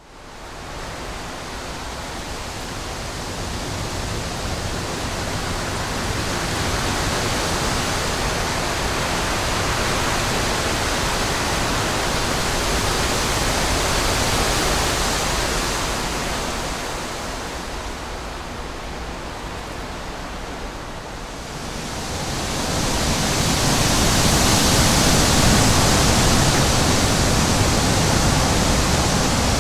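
Continuous rushing noise with no distinct events, building over the first few seconds, easing a little past the middle and then growing louder again for the last several seconds.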